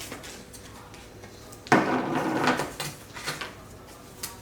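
Plastic slime tub lid being pulled open: a sudden scraping, rubbing sound about halfway through that lasts nearly a second, with a few small plastic clicks around it.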